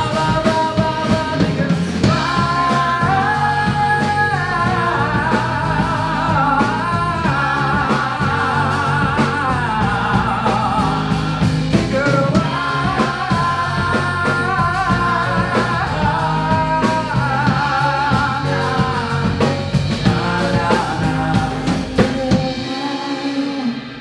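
Live pop-rock band with electric guitar, piano, bass and drums backing a lead singer and a group of backing vocalists. The band drops out near the end as the song finishes.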